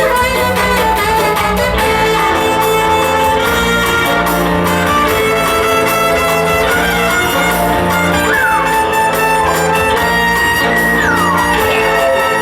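Instrumental show music, loud and steady, made of sustained held notes, with two short downward slides in pitch in the second half.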